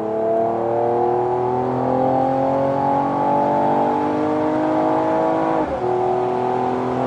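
Mercedes-AMG E53 4Matic+ 3.0-litre turbocharged inline-six accelerating hard, heard from inside the cabin. The engine note climbs steadily in fourth gear, drops with the upshift to fifth about five and a half seconds in, then climbs again.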